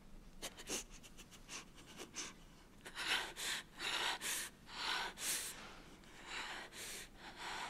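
A woman crying: short sniffs and catches of breath, then from about three seconds in a run of louder, gasping sobs.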